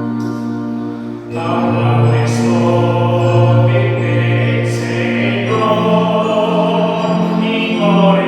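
A man singing a gospel hymn over sustained keyboard accompaniment, the voice coming in about a second in and holding long notes.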